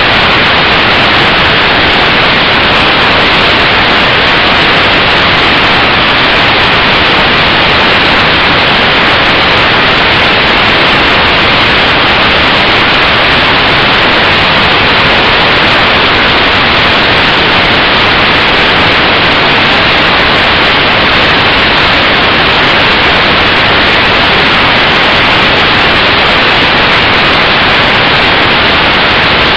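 Loud, steady, static-like hiss picked up by the tiny microphone of a lighter spy camera riding on a flying toy helicopter. It drowns out everything else and does not change.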